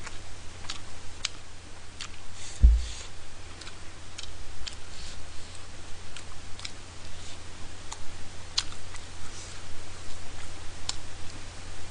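Mukbang eating sounds: wet chewing of tteokbokki with scattered small clicks from chopsticks and a plastic spoon, and one low thump a little under three seconds in, over a steady low hum.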